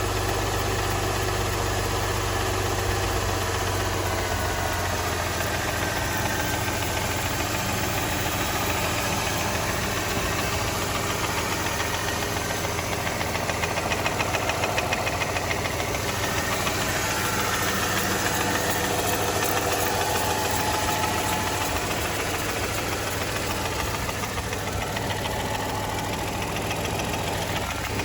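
Mercedes-Benz M272 3.0 L V6 engine running steadily with a rapid, continuous knock.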